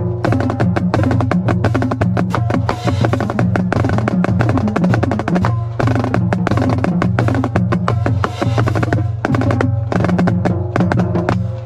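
Marching snare drum playing a fast cadence of rapid strokes and rolls alongside pitched drums, over a steady low drone; the playing stops near the end.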